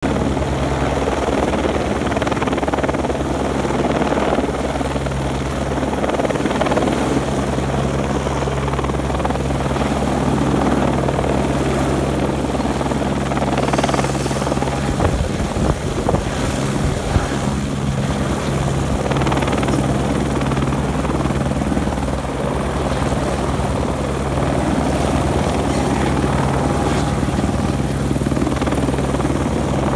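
Helicopter hovering close overhead, its rotor chopping steadily while it holds an underslung load on a long line. A few sharp knocks come about halfway through.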